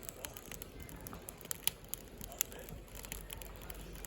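Firewood crackling in a Hillscamp Firenado Large fire pit stove: irregular sharp pops and clicks over a low steady hiss, with a couple of louder pops in the middle.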